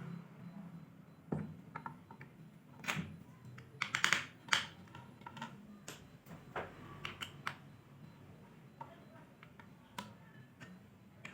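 Scattered light clicks and taps at an irregular pace, the loudest cluster about four seconds in, over a faint low hum.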